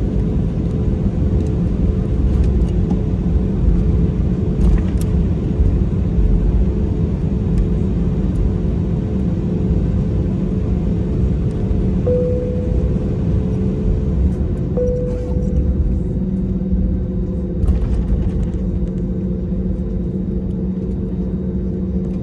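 Cabin sound of an Airbus A320neo taxiing: its CFM LEAP-1A turbofans run with a steady hum at taxi thrust over a low rumble of the airframe and wheels rolling on the taxiway.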